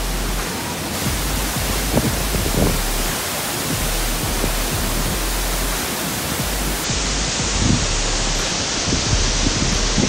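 Gljúfrabúi waterfall pouring down close by: a loud, steady rush of falling water, with the tone changing slightly about a second in and again near the end.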